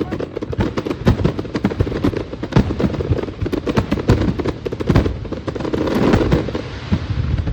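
Fireworks display going off: a dense, unbroken run of bangs and crackles, many a second.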